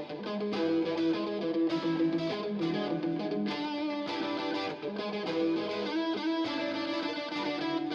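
Background music led by an electric guitar with effects and light distortion.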